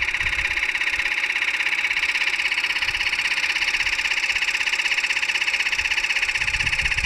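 Small 12-volt portable piston air compressor running steadily while it inflates a mountain-bike inner tube, giving a fast, even pulsing buzz. It is being run from a 6-volt battery.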